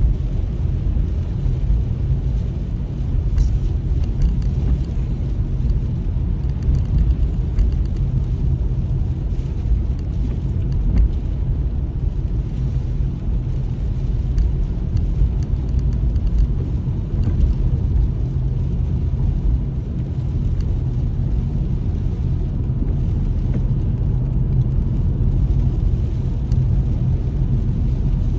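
Steady low rumble of a car being driven, heard from inside the cabin: engine and tyre noise on a rain-soaked road, with faint scattered ticks above it.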